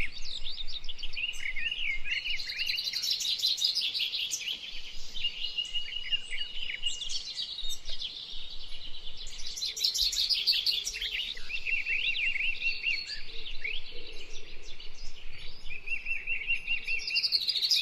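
Many small birds chirping and singing at once: a dense, continuous overlap of quick high chirps and trills.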